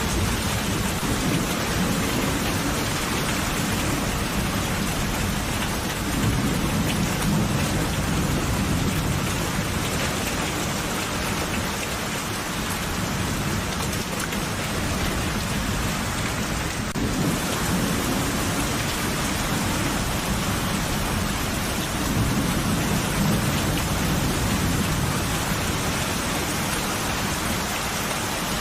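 Steady heavy rain falling, with low rolling thunder that swells twice, about a quarter of the way in and again about three quarters of the way through.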